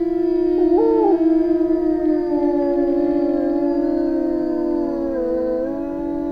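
European wolves (Canis lupus lupus) howling in chorus: several long howls at different pitches overlap and are held. One voice leaps briefly upward about a second in, and the pitches waver and dip near the end.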